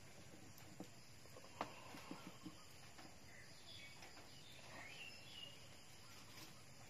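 Quiet outdoor background with a few light wooden knocks in the first couple of seconds, from a wooden spatula tapping a wok of boiling rice as it is stirred. A short bird call comes about five seconds in.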